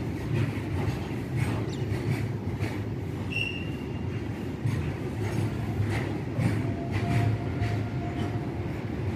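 Freight train wagons rolling slowly over the track, with a steady low rumble and wheels clicking over the rail joints in uneven pairs. A short high wheel squeal comes about three seconds in, and a longer, lower squeal comes about six and a half seconds in.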